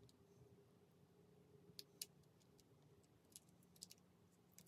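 Faint, scattered clicks, about half a dozen over a few seconds, from an iPod nano 5th generation's click wheel being pressed while it is tested. The wheel is loose and needs very hard pressing, which the repairer takes as a sign that it has to be glued down or replaced.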